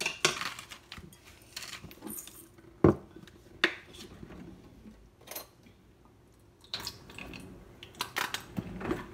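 Kitchen clatter of pans and utensils: scattered clinks and knocks, the loudest a sharp knock about three seconds in, with a busier run of clatter near the end.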